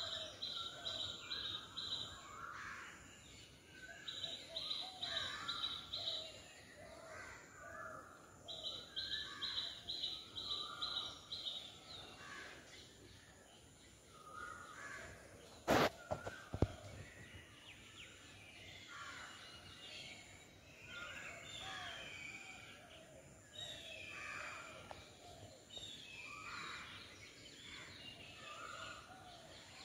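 Several birds calling in the trees: runs of rapid repeated high notes in the first dozen seconds and scattered chirps and calls throughout. Two sharp knocks about halfway through.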